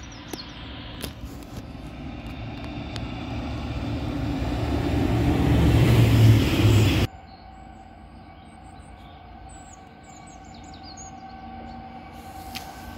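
Rumble of a passenger train on the main line, growing steadily louder as it nears, then cut off suddenly about seven seconds in. After that, a quieter steady hum of a distant diesel freight locomotive approaching, with a few bird chirps.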